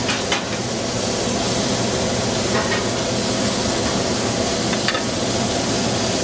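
Steady commercial-kitchen noise: an even sizzling hiss from cooking over a low hum, with a few faint clicks.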